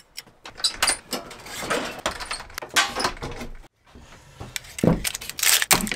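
Handling noises on a wooden workbench: a string of irregular knocks, clicks and clatters as yellow plastic bar clamps and a tape-wrapped knife are picked up and set down. The sound cuts out briefly about two-thirds of the way through.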